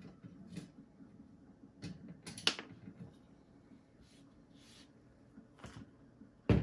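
Handling noise from taking the wire front guard off a floor fan: scattered clicks and scrapes of the metal grille, a sharp ringing scrape about two and a half seconds in, and a loud knock near the end.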